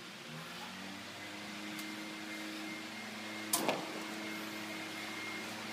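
Steady low mechanical hum from a running motor, rising slightly in pitch in the first second and then holding level. About three and a half seconds in, a short sharp double clack: a steel tape measure's blade snapping back into its case.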